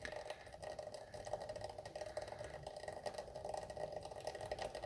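GAZelle manual gearbox running with a fast, even rattling knock, the sign of broken fifth-gear teeth on the countershaft and a collapsed bearing inside.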